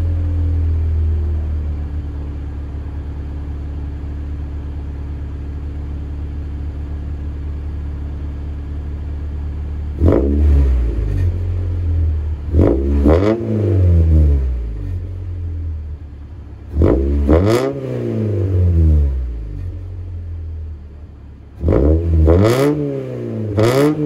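1996 Honda Civic EX's 1.6-litre four-cylinder engine running through a straight-pipe exhaust with no muffler: idling steadily for about ten seconds, then revved in quick blips, three groups of two or three revs each.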